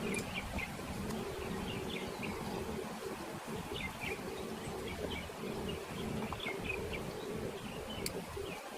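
Honey bees buzzing around an open hive, a steady hum, with small birds chirping repeatedly in the background.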